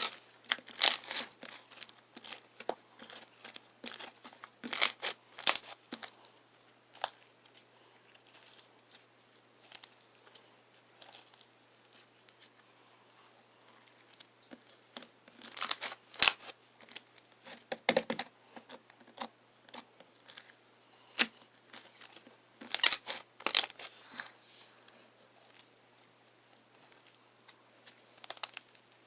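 Slime being squeezed, stretched and poked by hand, giving scattered bursts of crackling and popping with quieter stretches between.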